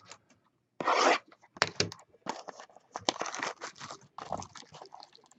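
Plastic shrink wrap being ripped and peeled off a sealed trading-card hobby box: one loud rip about a second in, then a run of shorter crinkling tears.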